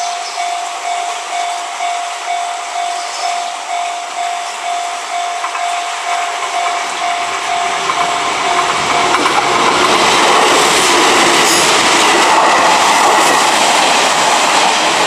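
Railway level-crossing warning bell ringing in a steady repeated tone, about one and a half rings a second. From about seven seconds in, a train's running noise and wheel clatter over the rail joints build up and pass by, loudest in the last five seconds and drowning the bell.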